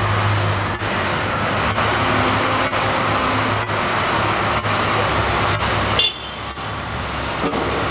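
Large diesel engines of a Cat 775G off-highway haul truck and a Cat 988K wheel loader running together, a steady low engine drone as the truck pulls in under the loader's raised bucket. The engine noise drops a little about six seconds in.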